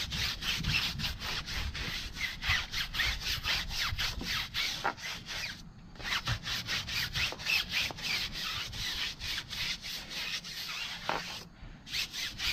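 A brush scrubbing degreaser foam into a car tire's sidewall in quick back-and-forth strokes, about four a second. The scrubbing stops briefly about six seconds in and again near the end.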